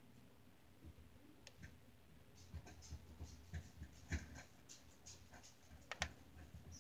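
Faint, scattered clicks and taps of a small gel polish pot being picked up and handled on a desk, with one sharper click about six seconds in.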